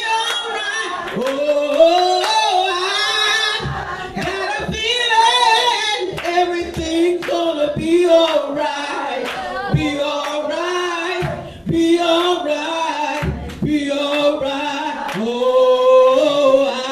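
A church congregation singing a gospel praise chorus together, with hands clapping along.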